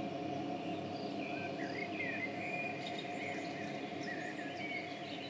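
Small birds chirping with many short calls that glide up and down, over a steady low drone.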